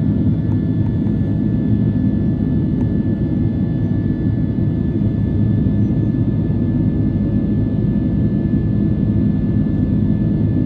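Airliner cabin noise while climbing out after takeoff: a steady rumble of the jet engines and rushing air, with a faint, even high engine whine above it.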